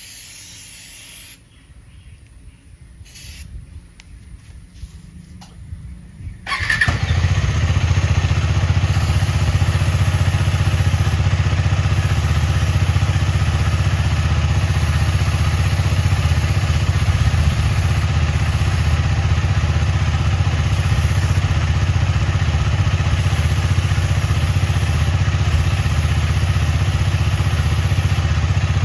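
KTM Duke 250's single-cylinder engine starting about six and a half seconds in and then running steadily at idle, on a paddock stand. Just before it, a short aerosol hiss.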